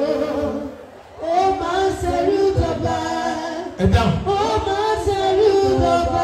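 Voices singing through a PA: a man sings into a handheld microphone while other voices join in on held notes. A few low thumps sound under the singing.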